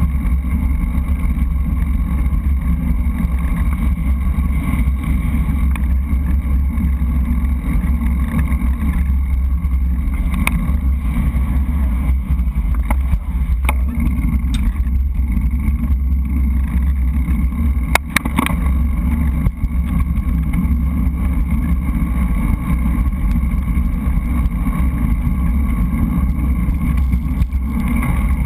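Steady low rumble of wind buffeting and road vibration on a bike-mounted GoPro riding at speed, with a few sharp clicks or knocks around the middle.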